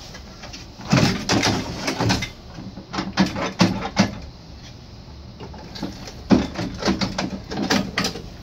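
Metal clicks, clunks and rattles from the slot machine's metal mechanism assembly inside the cabinet as it is gripped and worked loose by hand, in three bursts: one about a second in, another around three to four seconds, and a run of clicks near the end.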